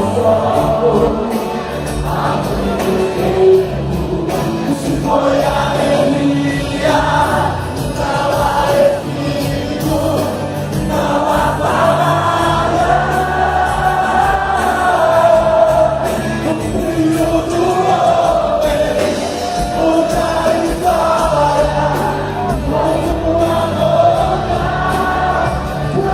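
Live Christian worship band playing with a group of voices singing together over a steady bass.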